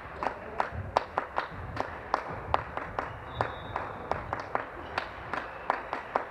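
Irregular sharp smacks and claps, several a second, in a sports hall during a volleyball match, with a faint brief high squeak about halfway through.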